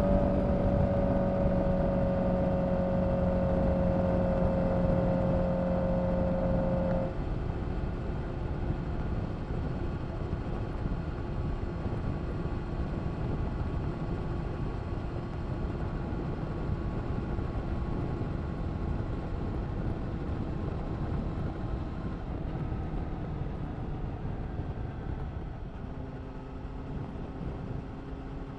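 Honda CBR1000RR-R SP Fireblade's inline-four engine running through an Akrapovic exhaust, holding a steady, slightly falling note for about seven seconds. It then drops off suddenly to a quieter, steady running sound, and a new steady engine tone comes in near the end.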